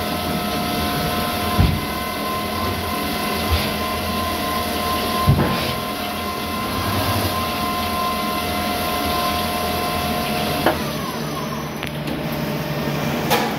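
Kovosvit Compact A35 CNC lathe running a machining cycle with flood coolant spraying: a steady whine in several tones over a hiss, with a few short knocks. The whine stops with a knock about eleven seconds in.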